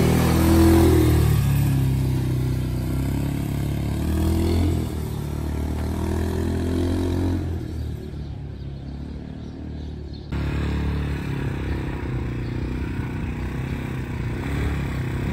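Italika quad bike's engine revving up and down as it rides on a dirt road, growing quieter for a few seconds as it moves off. About ten seconds in the sound jumps abruptly to a louder, rougher, steadier engine noise.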